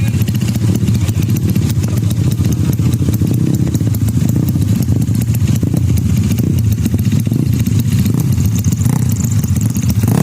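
A tuned Yamaha Mio race scooter's single-cylinder engine running steadily at a loud, even, low idle, without revving up or down.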